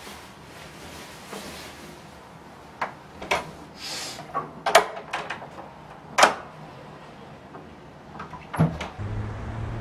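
A person pulling on a coat and going out through a room door on an overhead closer: clothing rustles, a handle and latch click, and the door shuts with a sharp knock about six seconds in, followed by a few more clicks. A steady low hum comes in near the end.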